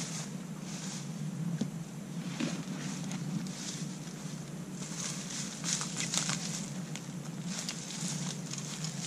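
Footsteps crunching through dry leaf litter, an irregular crackle of leaves underfoot, busiest a little past halfway, over a steady low hum.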